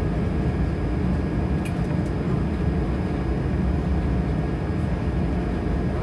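Jet airliner cabin noise while taxiing after landing: a steady low rumble with a faint, even high whine over it.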